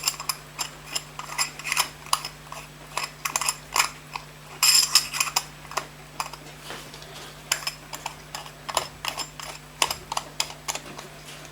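Small metal watchmaker's tools clicking and tapping irregularly against a pocket watch movement while the balance is fine-adjusted, over a steady low hum.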